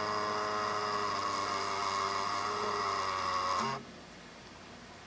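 A camera's internal mechanism groaning: a steady drone of several pitches that stops abruptly about four seconds in. It is a strange noise the camera makes every so often when it acts up.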